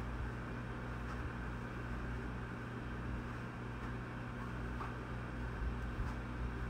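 Steady low hum of a car's engine and tyres heard from inside the cabin while driving at an even speed.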